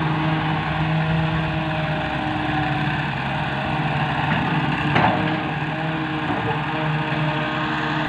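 Diesel engines of a tracked excavator and a Massey Ferguson tractor running steadily while sand is loaded, with one short knock about five seconds in.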